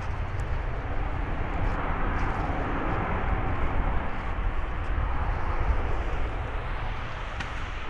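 Airbus A350-900's Rolls-Royce Trent XWB jet engines running at power during its takeoff from the runway: a steady, even rumble and hiss.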